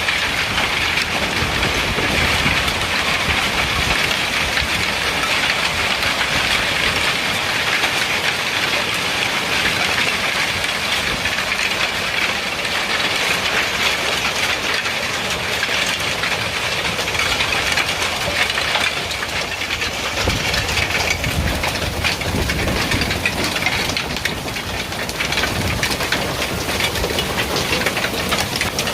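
Hail falling hard: a dense, steady clatter of many hailstones striking surfaces, with a hiss underneath.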